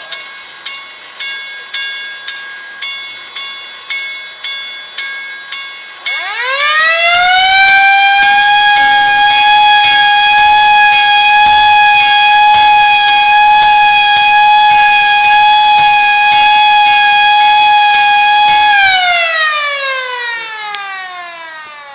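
Federal Signal Model D siren winding up from a low pitch to a steady loud wail, holding it for about ten seconds, then winding down with falling pitch as the rotor coasts to a stop. Before it starts, ringing strikes repeat about twice a second for the first six seconds.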